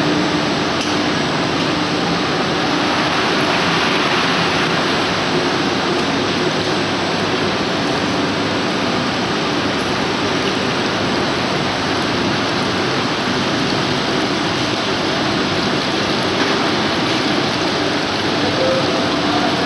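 Steady machinery noise of a running plastic pipe extrusion line: extruder drive motor and gearbox, barrel cooling blowers, and water-cooled pipe take-off, an even hiss with a faint hum underneath.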